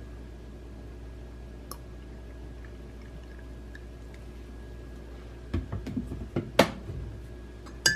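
Thick liquid coffee creamer poured softly from a plastic bottle into a ceramic mug of coffee, followed by several sharp clicks and knocks about five and a half to seven seconds in.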